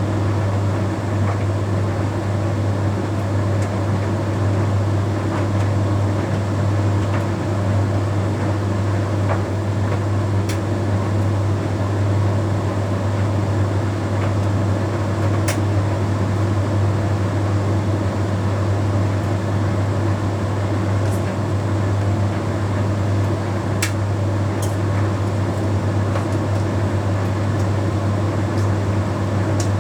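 Bosch Series 6 heat pump tumble dryer running its Shirts cycle: a steady low hum with the drum turning, and a few faint light clicks here and there.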